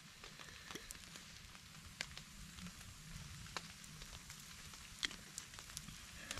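Small wood campfire crackling faintly over a steady soft hiss, with a handful of sharp pops scattered through.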